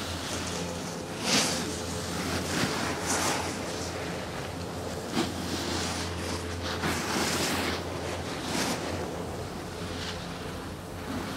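Snowboards and skis scraping and hissing over packed snow as riders carve past close by, in a string of separate swishes that swell and fade, over a steady low rumble.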